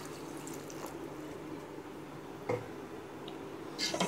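A utensil knocks once against an aluminium pressure cooker about two and a half seconds in, and scrapes briefly near the end, over a steady low kitchen hum.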